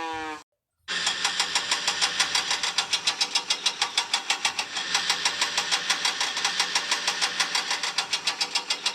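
A cartoon locomotive engine sound effect starts about a second in and runs with fast, even beats, about six a second, over a low hum.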